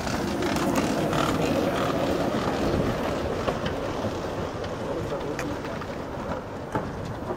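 Streamlined recumbent velomobiles passing close by: a steady rushing of tyres and air over the fairings that slowly fades as they move off, with wind on the microphone.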